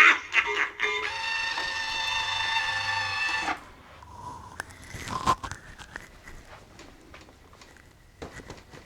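Seasonal Visions 2026 Crackles clown animatronic playing a loud held chord through its speaker, which cuts off abruptly after about two and a half seconds. After that come faint clicks and knocks, with one louder short sound in the middle.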